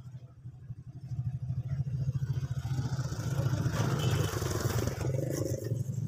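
A motorcycle passing on the road, its engine growing louder to a peak about four seconds in and then easing slightly.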